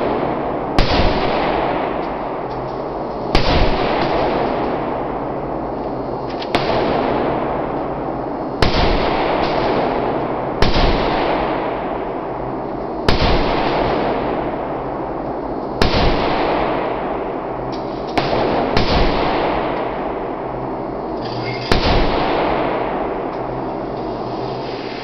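About ten single pistol shots, spaced two to three seconds apart, with two close together about three-quarters of the way through. Each shot is followed by the long echoing tail of an indoor range.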